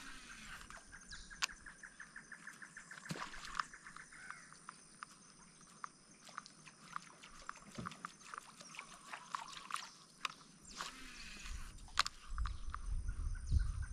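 Quiet lakeside outdoor ambience. A rapidly pulsing animal call repeats for the first four seconds or so, with scattered small ticks throughout. From about eleven seconds in, wind rumbles on the microphone.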